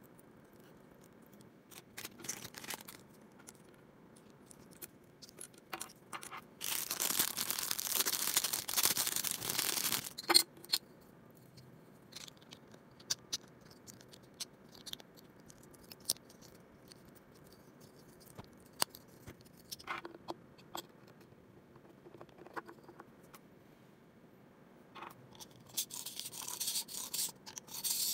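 Small plastic toy parts and a plastic capsule being handled, giving scattered sharp clicks and taps, with two longer spells of crinkling plastic wrapper: a loud one about seven seconds in lasting some four seconds, and another near the end.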